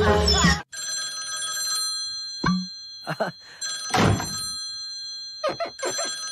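Cartoon party music cuts off abruptly under a second in, then a magic crystal ball rings like a telephone bell, a steady electronic ring, with a few short cartoon effects and a thud about four seconds in.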